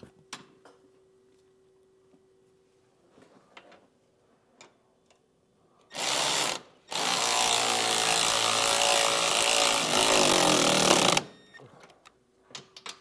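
Milwaukee cordless electric ratchet running a nut down onto a suspension bracket bolt: a short burst about six seconds in, then a steady run of about four seconds with a motor-and-gear whine. Small clicks of the tool and hardware being handled come before and after.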